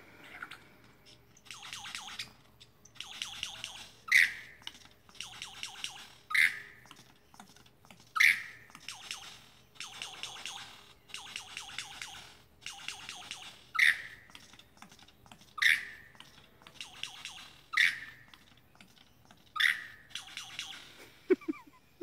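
Lyrebird singing: a loud, sharp note about every two seconds, alternating with rapid, chattering, rasping phrases.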